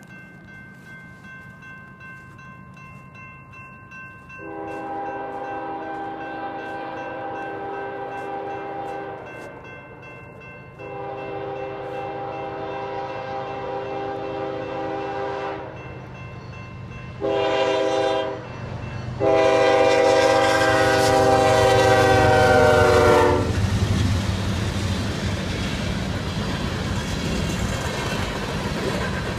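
A railroad crossing bell rings steadily while a diesel freight train's multi-tone air horn sounds the grade-crossing signal: two long blasts, a short one, and a final long, loudest one. The horn gives way to the rumble and clatter of the freight cars rolling over the crossing.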